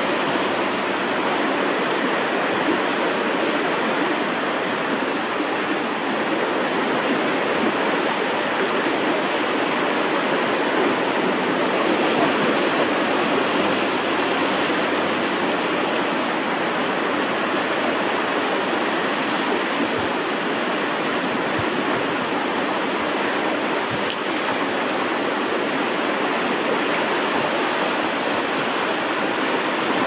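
Ocean surf washing in over a rocky shoreline: a steady rush of water noise with no distinct breaks.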